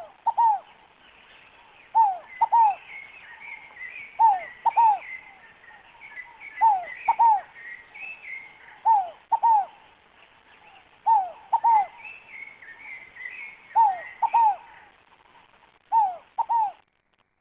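A scaled dove (fogo-apagou) repeating its coo: a pair of short notes, each falling in pitch, given eight times at about two-second intervals. Fainter, higher chirps of small birds sound in the background.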